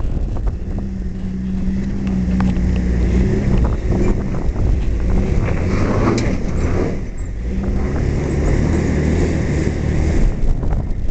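Jeep Wrangler on 35-inch tyres crawling over rocks: the engine running steadily under load, with tyres scrabbling on rock and loose dirt about halfway through and scattered knocks of rock under the wheels.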